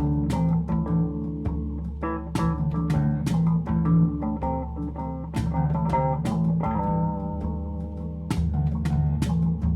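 Background music: guitar and bass guitar with a steady drum beat.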